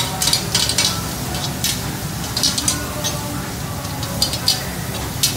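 Long metal cooking sticks scraping and tapping across a large round flat-top griddle in quick irregular strokes as food is stirred and pushed, over a steady sizzle of frying food and a low hum.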